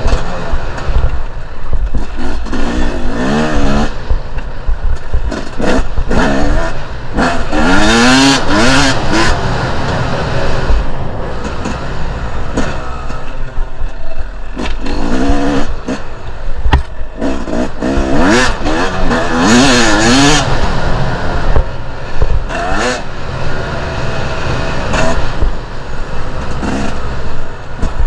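Two-stroke enduro dirt bike engine revving hard on a trail ride, its pitch climbing and dropping again and again as the throttle is worked, with rattling and rushing noise from the rough ground and wind.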